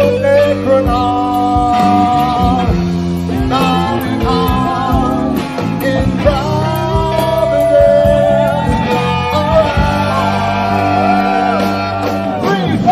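Live rock music with electric guitar and a singing voice, played by a band in creature costumes.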